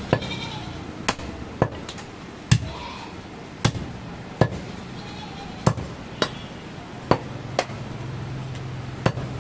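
Heavy cleaver chopping goat meat and bone on a wooden log chopping block. About eleven sharp chops fall unevenly, roughly one a second.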